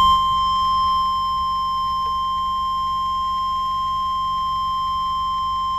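NOAA Weather Radio 1050 Hz warning alarm tone, one long steady beep from an Acurite 8550 handheld weather radio's speaker, signalling that a warning message follows. The tone is distorted by the radio's volume during warnings and eases slightly in loudness about a second in.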